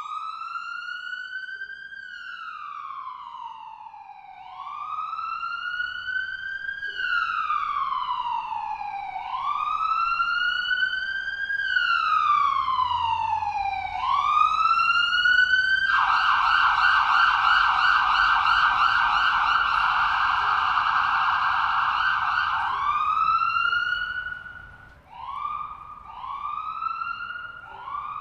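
Ambulance siren: a slow wail rising and falling in pitch about every four to five seconds, growing louder over the first dozen seconds. Past the middle it switches to a fast yelp for about seven seconds, then goes back to shorter rising wails.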